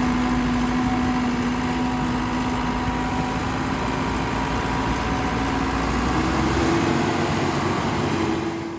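Case 580 Super L loader backhoe's diesel engine running steadily; its pitch steps up about six seconds in as the engine speeds up, and the sound fades out near the end.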